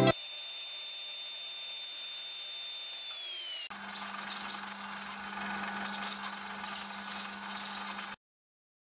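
Power drill boring into wood with a spade bit, its steady whine dropping in pitch about three seconds in as the motor winds down. Then a vertical belt sander runs with a steady hum while the end of a wooden dowel is sanded against the belt, cutting off suddenly near the end.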